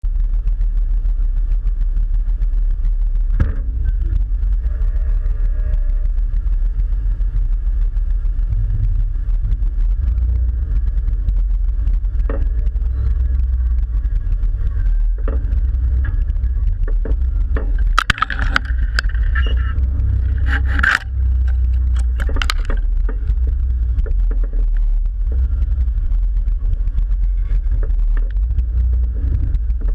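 Jeep crawling over a rocky dirt trail, heard through a camera mounted on the vehicle: a steady low engine and drivetrain rumble with body and chassis vibration. Scattered knocks come as the tyres go over rocks, and a burst of sharp clatters and scrapes comes about two-thirds of the way through.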